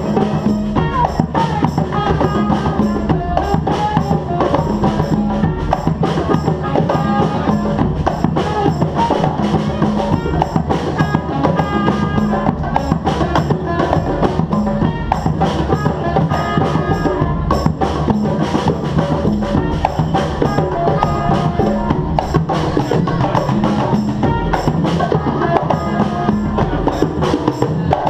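A band playing live, a drum-led piece with many quick percussion hits over held pitched notes, without a break.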